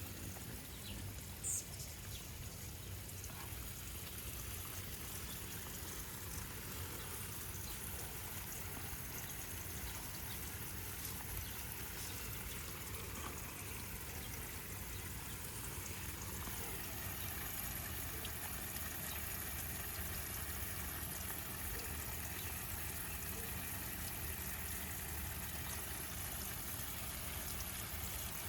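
Steady outdoor background noise with a low rumble, and one brief high-pitched blip about a second and a half in.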